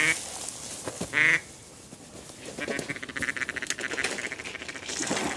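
Duck quacks: a loud quack at the start and another about a second later, then a fast run of short chattering notes lasting about two seconds.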